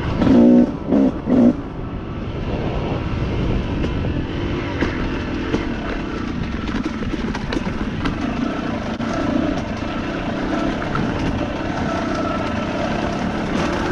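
Two-stroke Yamaha YZ250 dirt bike engine revs in three sharp blips in the first second and a half, then runs continuously, its pitch wavering with the throttle as the bike is ridden along the trail.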